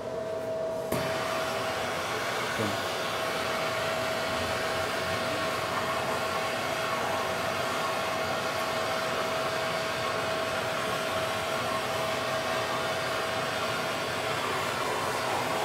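Gas torch burning with a steady rushing hiss as its blue flame preheats an aluminium plate before arc welding. The flame's noise comes up with a click about a second in.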